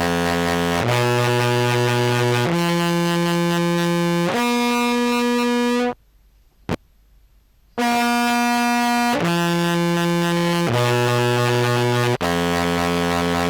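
Contrabass clarinet played through fuzz and modulation pedals, giving a buzzy, heavily distorted tone. It holds long notes that step upward, stops for about two seconds with a single click, then plays a matching run stepping back down.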